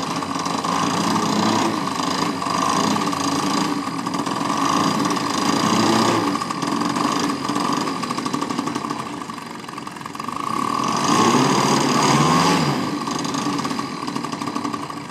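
Engine of a large-scale radio-controlled Tiger Moth model biplane running on the ground, its pitch and loudness rising and falling twice with throttle blips.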